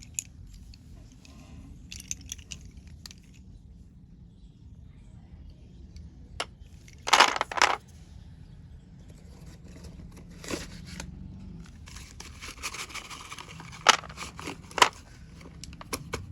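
Slate pencils and their packet being handled: scattered clicks and rustling, with a few louder, harsher scraping sounds, the loudest about seven seconds in.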